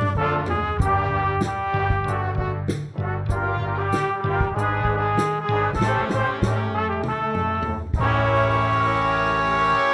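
Student trumpet ensemble playing with electric bass and drum set, the drums keeping a steady beat with cymbal strokes about twice a second. About eight seconds in, the band settles on a long held chord.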